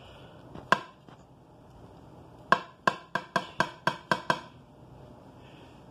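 A knife chopping down onto a board, cutting the pizza: one sharp knock, then a quick run of about eight, some four or five a second.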